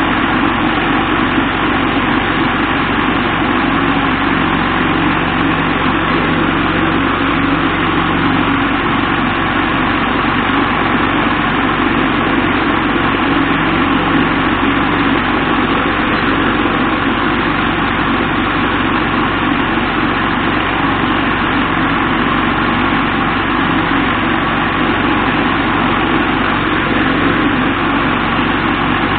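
Vibratory bowl tumbler running steadily, its tumbling media churning and rattling over a motor hum as it deburrs welded steel parts.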